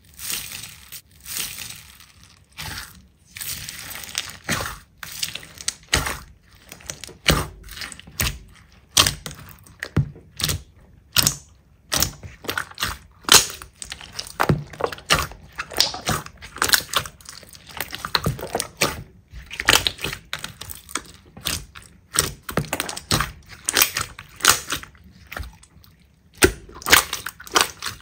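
Slime being squeezed, pressed and poked by hand, giving dense runs of quick sticky pops and crackles in uneven bursts.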